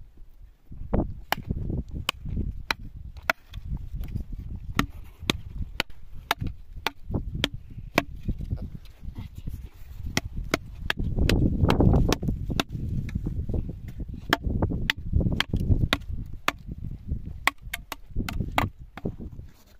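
A quick, irregular run of sharp knocks, about two to three a second, like chopping, over a low rumble that swells about halfway through.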